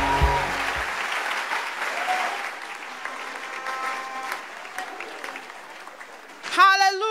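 A large audience applauding and slowly dying away, over background music that stops about a second in. Near the end a loud held note with a steady pitch breaks in.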